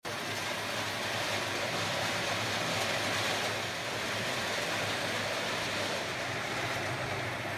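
Kadıoğlu 180E walnut hulling machine running with its water spray on: a steady rushing wash over a low motor hum as its drum works the walnuts.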